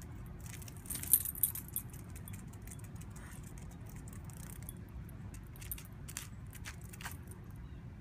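Dog's metal collar tags jingling and clinking as the dog lowers its head and noses at the ground. A brief burst of sharp clinks about a second in is the loudest, followed by lighter scattered clinks now and then.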